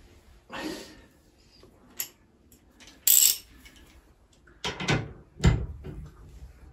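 Metal clinks and knocks of a socket ratchet and long extension bar being handled and fitted onto a bath mixer tap's new valve to tighten it, a few separate short sounds with the loudest, deepest knock about five and a half seconds in.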